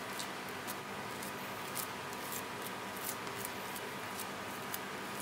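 Silicone spatula pressing and spreading sticky mashed potato filling over shredded cheese and dough, giving scattered light, irregular wet clicks over a steady background hiss.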